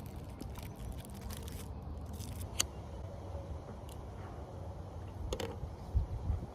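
Wind rumbling on the microphone, with a few sharp small clicks and a low thump near the end.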